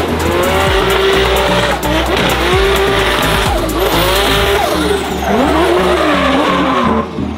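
Drift car's engine revving up and down as it slides sideways, with tyres squealing and smoking; music with a steady beat runs underneath. The car sound drops away near the end.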